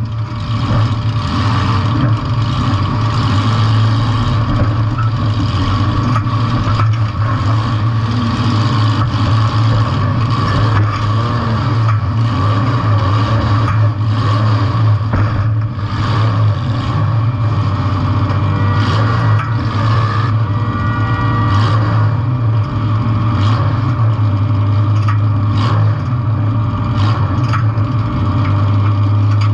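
Compact demolition-derby car's engine running hard and steadily, with repeated knocks and clatter throughout.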